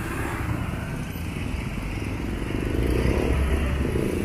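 A motorcycle's engine running as it rides past close by, over a steady rumble of street traffic that grows a little louder about three seconds in.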